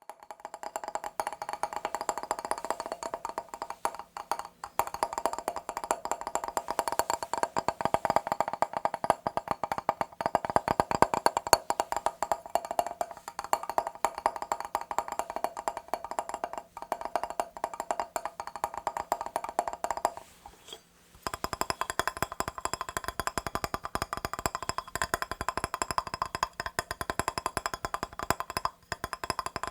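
Fast, continuous tapping on a mirror, a rapid stream of light clicks that stops briefly about two-thirds of the way through and then resumes.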